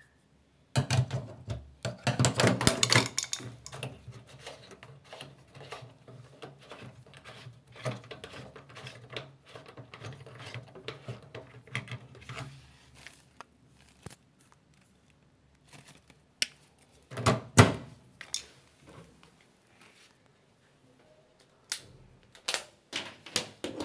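Plastic clicking and rattling as hands work the washing machine's bottom service cover, densest in the first few seconds and thinning out. There is a short cluster of sharp knocks later, and a few clicks near the end as the plug is pulled from the wall socket.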